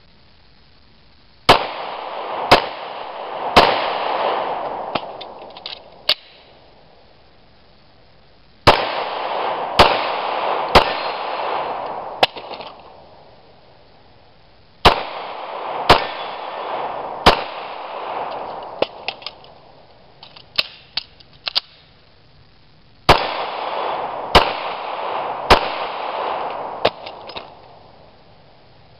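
Semi-automatic pistol fired in four strings of three shots, about a second apart, each shot echoing for a couple of seconds. In the gaps between strings come small clicks of a magazine change and the slide being released by hand.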